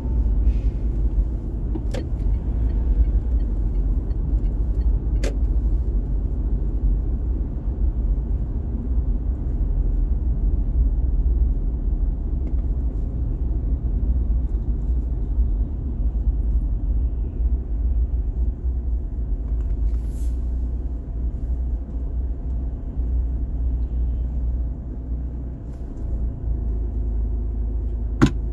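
A car driving in traffic, with a steady low rumble of road and engine noise. A few sharp clicks cut through it, the loudest near the end.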